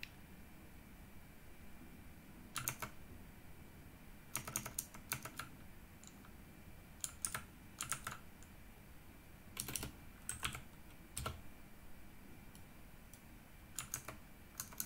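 Computer keyboard typing in short irregular bursts of keystrokes, with pauses of a second or two between them.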